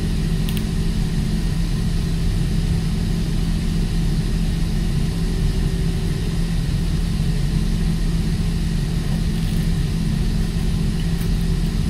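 Steady low drone of a ship's engines and machinery, with an even hum. A couple of faint ticks come from the steel wire rope strands being worked in the vise.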